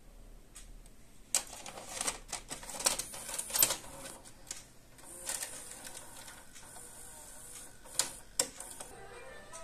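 Small plastic mechanism of a VHS cassette clicking and rattling as it is worked by hand, a quick run of sharp clicks, then a fainter steady running sound with two more clicks near the end.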